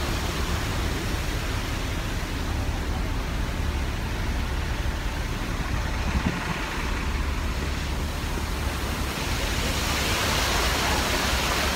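Steady outdoor noise: a low rumble of wind on the microphone mixed with street traffic. About ten seconds in, a louder rushing hiss of fountain water joins it.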